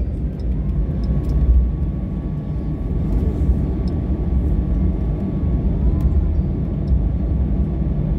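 Steady low rumble of an airliner cabin after landing, with a faint thin whine held for a few seconds in the middle.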